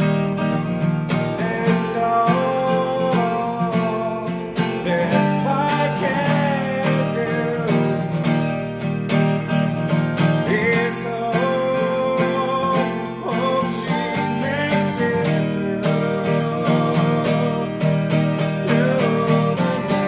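Acoustic guitar strummed in a steady, quick rhythm of chords.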